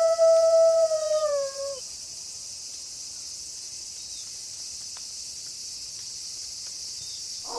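A wolf howl holds one steady pitch, then slides down and ends about two seconds in. A steady chorus of crickets carries on underneath, and a new howl begins right at the end.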